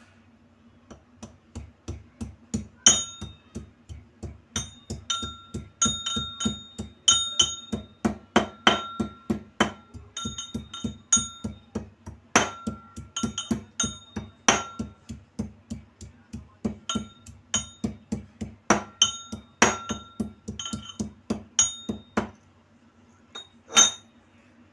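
Metal pestle rod pounding fresh ginger in a steel tumbler, about three strokes a second, each strike making the tumbler ring with a clink. The pounding stops near the end, followed by one last single strike.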